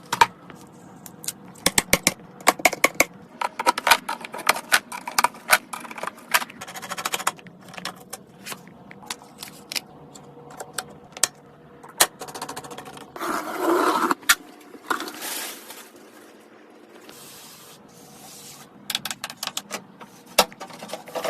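Computer parts being handled and fitted together in a PC build: a dense string of sharp clicks, taps and scrapes of metal and plastic, with a brief rasping noise a little past the middle.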